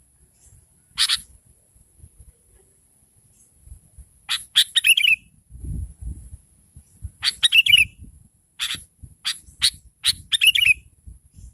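Sooty-headed bulbul (kutilang) calling: a single sharp note about a second in, then from about four seconds on repeated bursts of quick, sharp chirps with falling notes, about one burst a second. It is the excited call of a female used as a lure to draw a calling reply from males.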